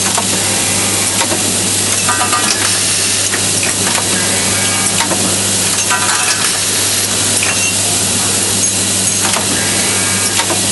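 Semi-automatic hinge assembly machine running, with a steady hum and hiss throughout. A short metallic clatter comes back about every four seconds, with occasional sharp clicks as the machine cycles on a hinge part.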